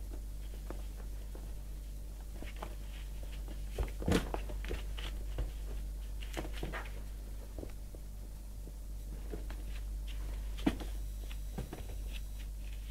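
A cat scuffling inside a cardboard box as it kicks and bites a plush toy: irregular scrapes, scratches and light knocks of claws and body against the cardboard, the sharpest about four seconds in and again near eleven seconds, over a steady low hum.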